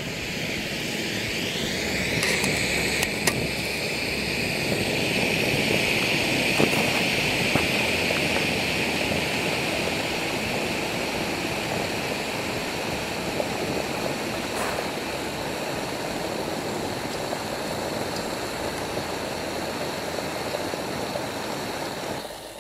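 Jetboil canister gas stove burning with a steady roar under its cooking cup, freshly lit.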